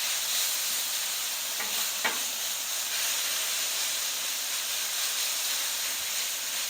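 Shredded hash browns frying in butter on a Blackstone flat-top griddle, a steady sizzle. Two brief spatula scrapes about two seconds in as the potatoes are broken up.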